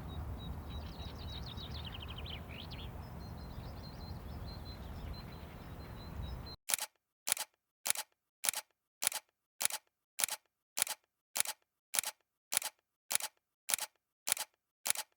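A steady low rumble with a few faint high chirping trills runs for about six and a half seconds. It cuts off abruptly, and a run of evenly spaced sharp clicks follows, a little under two a second.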